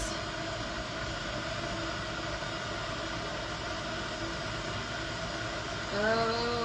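Steady background hum and hiss of a kitchen, with faint low steady tones. A voice briefly begins near the end.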